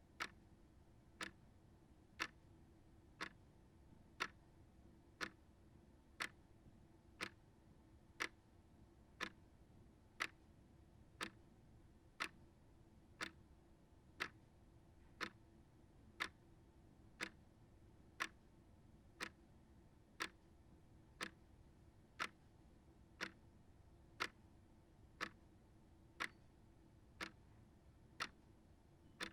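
Small shelf clock ticking steadily, about one sharp tick a second.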